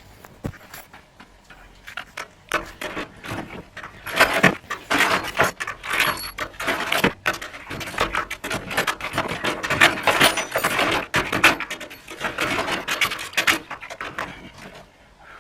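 Hand tools clattering and clinking as they are handled and sorted, with many quick knocks and rattles coming one after another.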